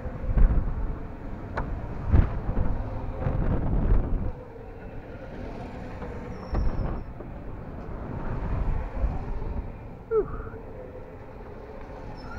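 Gusty wind rumbling on the microphone as the ride car swings round, with a faint steady hum underneath. A short falling squeak comes about ten seconds in.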